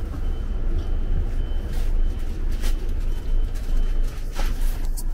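Highway coach's engine idling with a low steady rumble, heard from inside the bus. Over it come a few sharp knocks and shuffles of footsteps on the entry steps, and a faint high tone comes and goes.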